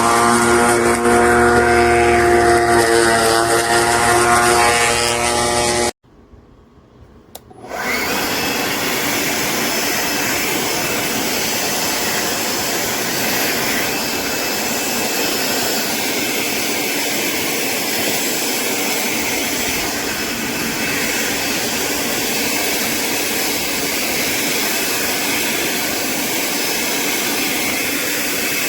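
Greenworks 40V brushless cordless push mower running: a steady electric motor whine over a low hum. About six seconds in it cuts off suddenly, and there is near silence for under two seconds. Then a steady rushing whir with no clear pitch takes over as the mower goes on cutting tall grass.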